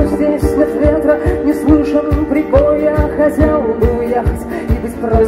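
Live rock band playing: a woman singing a melody over acoustic and electric guitars, with a steady beat of about two to three strokes a second.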